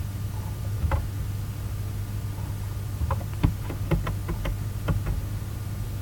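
Computer mouse clicking about nine times, once near the start and then in a quick run between three and five seconds in, as the PowerPoint slides are clicked through, over a steady low electrical hum.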